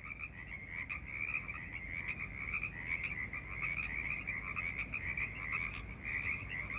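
A chorus of many frogs calling at once, their high-pitched croaks overlapping into a continuous din without a break.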